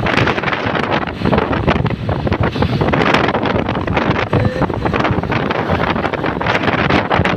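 Wind buffeting the microphone on the move, over steady engine and road noise from traffic. No horn sounds.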